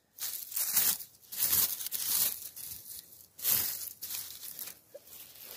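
Rustling and tearing of forest-floor vegetation being disturbed, in several irregular bursts.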